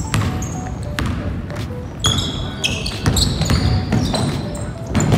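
Basketball bouncing on a hardwood gym floor, dribbled in repeated thumps about once or twice a second, with sneakers squeaking sharply as players run and cut.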